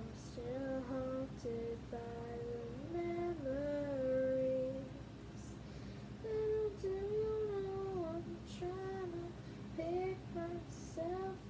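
A girl singing a slow melody in long held notes that slide between pitches, in two phrases with a short break in the middle. A few faint high clicks come through now and then.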